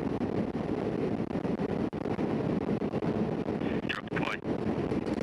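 Steady rush of wind and engine noise inside the cargo hold of a C-17 Globemaster III flying with its rear ramp open. A brief higher-pitched, voice-like sound cuts through about four seconds in.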